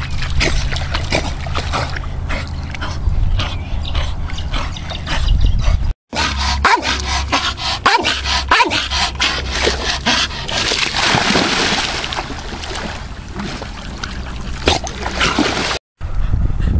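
Staffordshire bull terrier whining and yipping excitedly, with barks; the calls come thickest in the middle, among water splashing.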